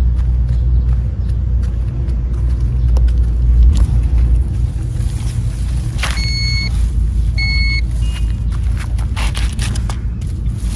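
A toy metal detector beeping twice, about a second apart, as its coil passes over the bush: the signal that it has found the metal toy car hidden there. A steady low rumble runs underneath.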